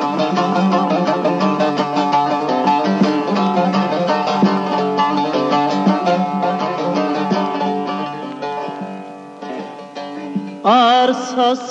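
Instrumental break of a Turkish folk song: a plucked lute strummed in rapid, dense strokes, thinning and fading in the last few seconds. Near the end a voice comes in singing a long held note with vibrato.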